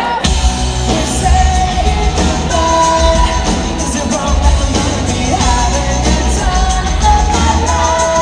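Pop-rock band playing live, heard from the audience: a male lead vocal sung over drums, bass and electric guitar, with the full band kicking in just after the start.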